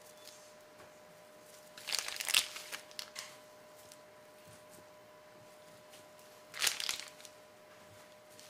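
Crinkling of packaging being handled, in two bursts: a longer one about two seconds in and a short one near seven seconds. A faint steady hum runs underneath.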